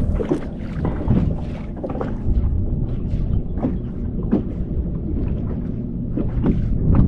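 Small fishing boat on open water: a steady low rumble with irregular light knocks and splashes against the hull.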